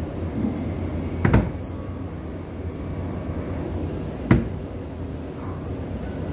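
Wooden drawers on metal ball-bearing slides being pushed shut, knocking closed twice, about a second in and about four seconds in. A steady low hum runs underneath.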